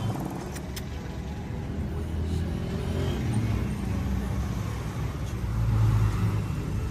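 Low, steady rumble of motor traffic on the street, swelling about six seconds in as a vehicle passes close.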